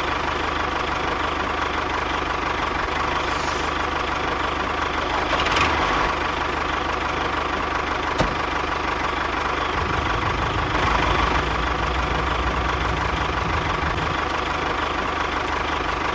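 A tractor engine running steadily at idle, with a low chug and a constant high whine.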